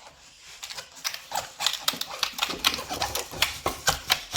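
Spoon stirring a thick slime mixture of dish soap and shampoo in a bowl, clicking against the bowl in a rapid, regular run of about five strokes a second that starts about a second in and grows louder.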